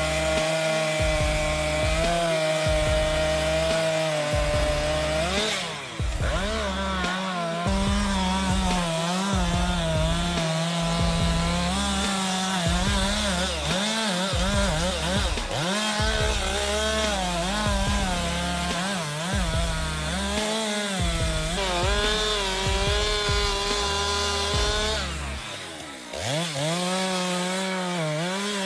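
Chainsaw running under load while cutting wood, its engine pitch repeatedly dipping and rising as the chain bites and frees. The sound changes abruptly about six seconds in and again near the end.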